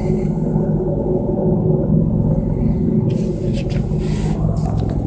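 US Army AH-64 Apache attack helicopters flying past, a steady low rotor and engine rumble with a fast pulsing beat, plus a few short bursts of hiss.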